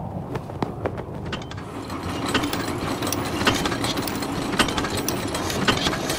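Machinery sound effect: a steady mechanical clatter with scattered sharp clicks and knocks, growing louder about two seconds in.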